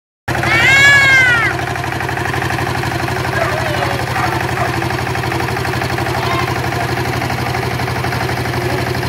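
Small compact tractor's engine running steadily with an even, fast pulsing beat. Near the start a child's high call rises and falls for about a second.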